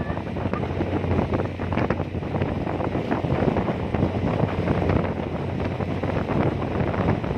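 Strong wind buffeting the microphone on a ferry deck, over a steady low engine hum.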